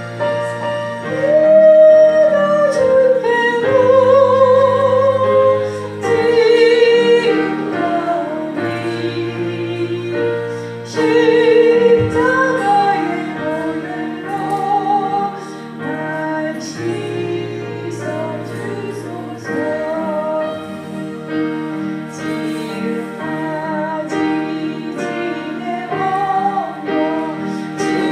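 Slow church worship music: sustained keyboard chords changing every few seconds under a held melody line with vibrato, sung or played.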